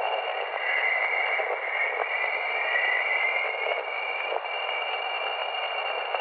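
Jovian chorus: radio emissions from Jupiter's magnetosphere played back as sound, a steady static-like hiss with a faint whistling tone that glides slowly upward.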